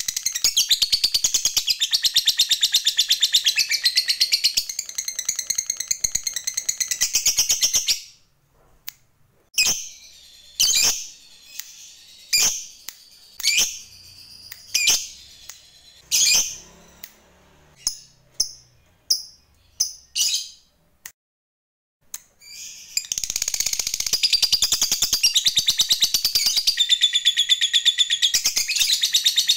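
Lovebird's long 'ngekek' call, a very fast unbroken chatter of high chirps, for about eight seconds. It breaks into a dozen or so separate single chirps and a short pause, then the rapid chatter starts again about three-quarters of the way through.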